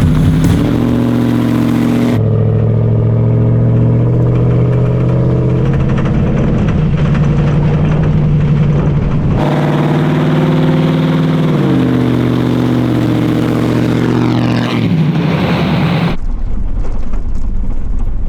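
Toyota Sequoia's V8 engine running as the SUV drives, its pitch stepping up and down and gliding down near the end. In the last couple of seconds this gives way to a low road rumble.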